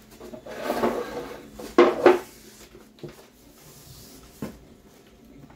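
Cardboard flaps of a large shipping box being handled and pushed open, rustling and scraping, loudest twice about two seconds in, followed by a couple of light knocks.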